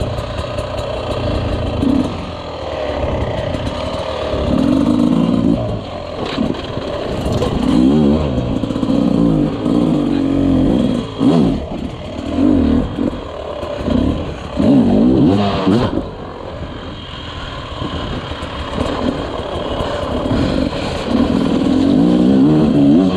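Dirt bike engine being ridden over rough terrain, revving up and falling back over and over, with occasional knocks and clatter.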